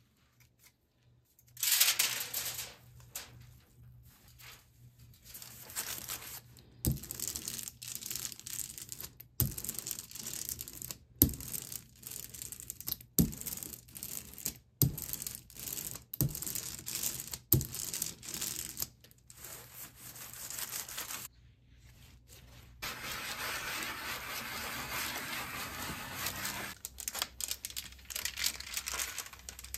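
Rubber brayer rolling tacky litho ink across the inked aluminium-foil plate: a sticky crackling rasp in short stretches, with sharp knocks every second or two. Near the end comes a steadier stretch of noise, and then the paper sheet is peeled off the foil.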